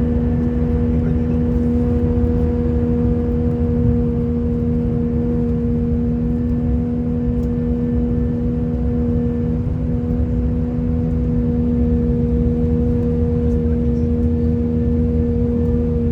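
Airbus A319 cabin noise in flight: a steady low rumble of engines and airflow, with a steady low hum and its overtone running throughout, a humming the uploader could not identify and that was present the whole flight.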